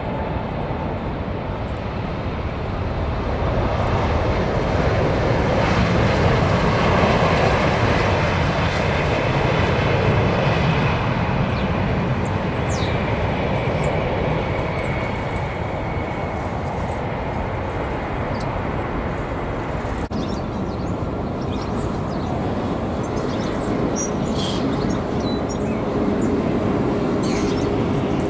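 Boeing 787 Dreamliner jet engines as it lands and rolls out along the runway. The roar swells to a peak several seconds in, then eases. After a sudden cut, the steady jet noise of another 787 on final approach follows.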